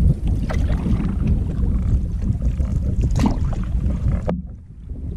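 Wind buffeting the microphone over a canoe moving through choppy river water, with a few splashes of paddle strokes and small waves slapping the hull. The sound goes briefly dull near the end.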